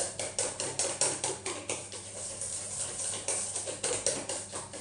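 A hand whisk beating a thick mascarpone cream in a metal mixing bowl, clattering against the bowl in rapid, even strokes, about six a second.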